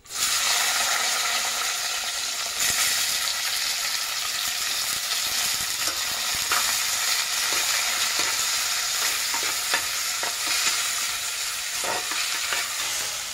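Sliced red onions sizzling in hot oil in a clay pot. The frying hiss starts suddenly as they drop in and keeps on steadily while a metal spatula stirs them, with a few light knocks against the pot.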